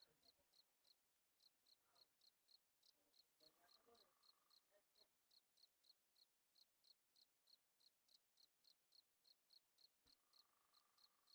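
Faint cricket chirping, short high chirps repeating evenly at about four to five a second.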